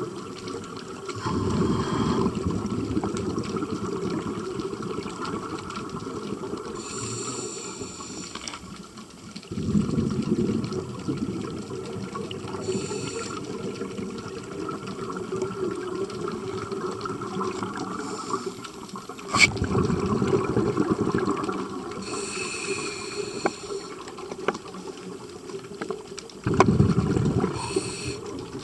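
Scuba diver breathing through a regulator underwater: four bursts of exhaled bubbles about eight seconds apart, with short hissing inhales through the regulator between them.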